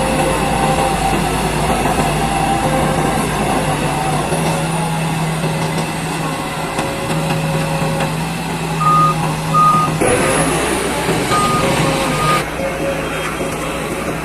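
Crawler bulldozer's diesel engine running steadily while working sand, with a reversing alarm giving a few short beeps in the second half.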